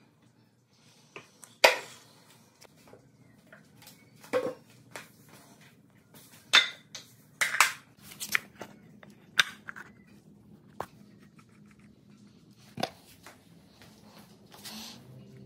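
Irregular metallic clinks, clicks and knocks of tools and washing-machine parts being handled, a dozen or so sharp hits spread unevenly, over a faint low hum.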